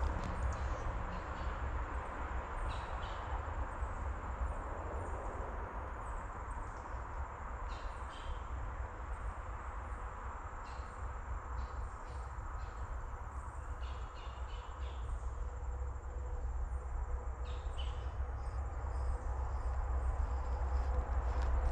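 Woodland ambience: a steady low rumble of wind on the microphone, with short high chirps repeating about once or twice a second and scattered small ticks.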